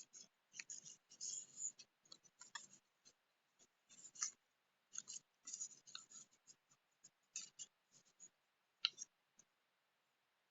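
Small paper and craft items being handled close by: soft, irregular rustles, scratches and clicks, one after another with short quiet gaps.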